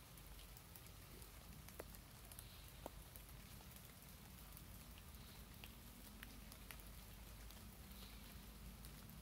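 Near silence: faint room tone with a steady low hum and a few scattered faint ticks.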